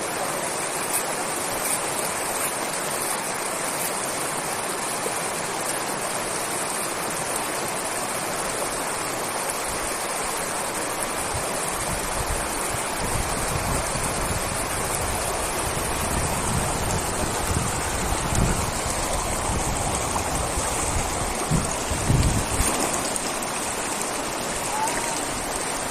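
Steady rush of flowing river water. From about ten seconds in, low rumbling gusts come and go over it, loudest a few seconds before the end.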